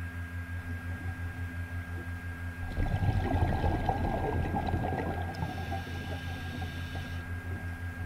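Scuba diver's exhaled bubbles from the regulator, a dense gurgling burst from about three seconds in that fades by five seconds, heard through the camera's underwater housing over a steady low pulsing hum.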